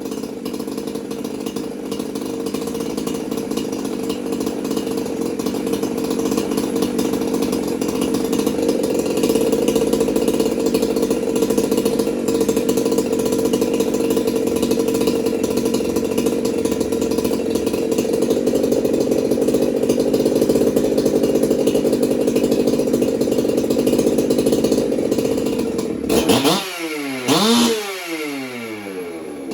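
Freshly assembled Jonsered 2065 two-stroke chainsaw engine, no bar or chain fitted, running steadily, then revved up and back down twice near the end.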